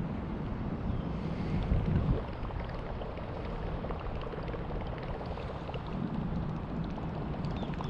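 Wind buffeting the microphone: a low rumble that is heaviest for the first two seconds and again near the end, with faint scattered ticks.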